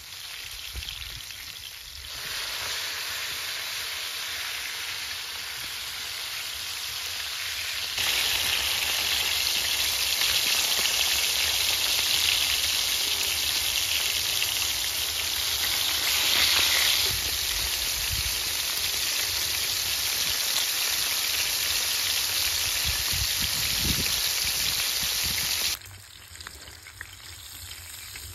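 Whole floured fish frying in hot oil in a shallow pan: a steady sizzle that gets louder about eight seconds in and drops away near the end.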